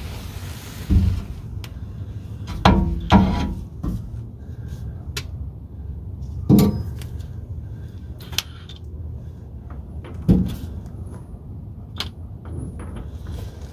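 Scattered knocks and clunks of a driveshaft being handled and worked back into place at the pinion flange of a Ford 8.8 rear axle. There are five heavier thuds, about a second in, twice near three seconds, at about six and a half and at about ten seconds, with lighter metallic clicks between.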